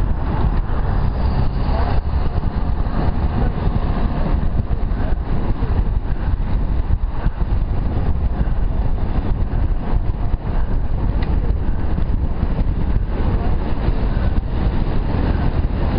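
Steady, loud wind rumble on the microphone of a camera riding on a moving bicycle, with road noise underneath.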